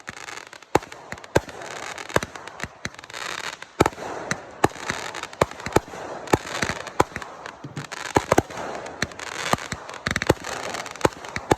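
Fireworks going off: a rapid, irregular string of sharp bangs and pops, several a second, over continuous crackling.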